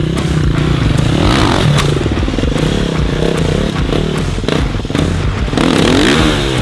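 Dirt bike engine revving hard and letting off again and again as it is ridden off-road. The pitch rises and falls several times, with a steady wash of mechanical noise under it.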